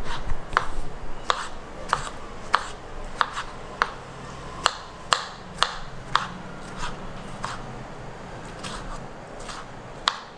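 A run of sharp taps, about two a second and slightly uneven, some with a short ring; they thin out in the last few seconds.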